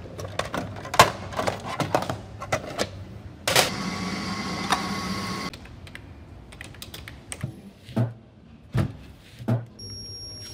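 A string of separate everyday sounds: sharp plastic clicks and clacks, then a steady mechanical whirr for about two seconds, then light typing on a computer keyboard, and three dull thumps near the end.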